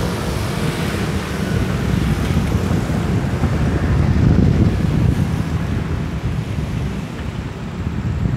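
Wind buffeting a phone's microphone: a loud, uneven low rumble that swells about four seconds in.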